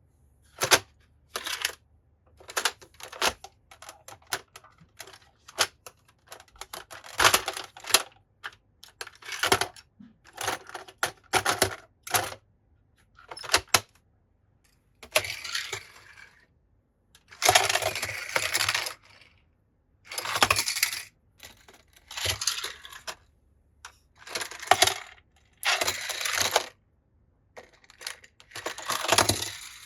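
Small die-cast toy cars clinking and clattering against each other and a hard surface in irregular bursts. The bursts are short clicks at first, then longer rattles of about a second each.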